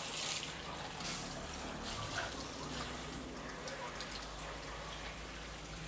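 Water splashing and dripping with wet, crackly rubbing, as hands scrub wet hair during a hair wash.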